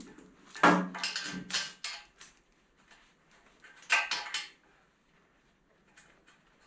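Clinking and knocking of hydraulic hoses and their steel end fittings being handled against a steel frame, in a cluster of several knocks about a second in and a shorter one about four seconds in.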